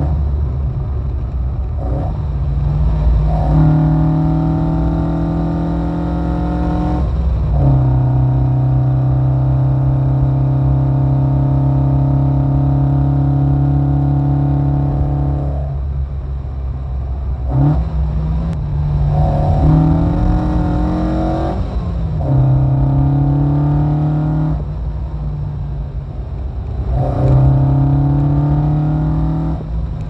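The 1972 Alfa Romeo Giulia Super's twin-cam four-cylinder engine, heard from inside the cabin, driven hard at full chat. It holds steady high revs for several seconds at a time, and the note breaks off and picks up again at a changed pitch about half a dozen times, as the throttle is lifted and the gears are changed.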